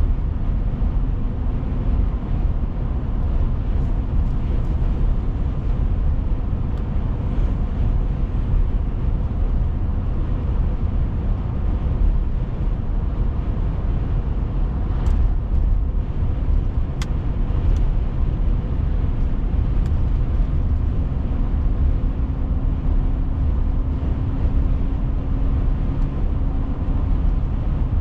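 Steady road noise of a car being driven, heard from inside the cabin: a continuous low rumble of tyres and engine with a faint engine hum. A few faint clicks come about halfway through.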